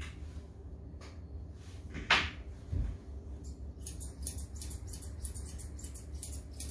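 Straight grooming scissors snipping through a Bedlington terrier's coat in a quick run of crisp snips, about four or five a second, starting about three and a half seconds in. Before that come a few separate sharp sounds, the loudest about two seconds in, over a steady low hum.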